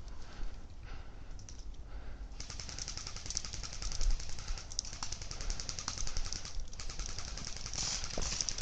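Airsoft AK-47 replica firing on full auto: long strings of rapid, even clicks that start about two seconds in, with two short breaks.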